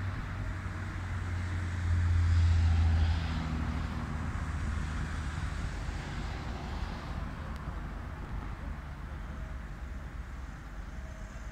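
Jet engines of a Boeing 737-800 on approach, heard from the ground as a steady roar mixed with street traffic. A heavier low rumble rises from about two to three seconds in.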